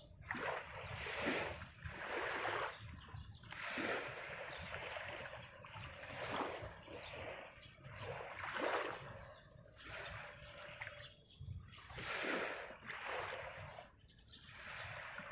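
Small sea waves washing and splashing onto the sandy shore, a dozen or so soft, irregular swashes about a second apart.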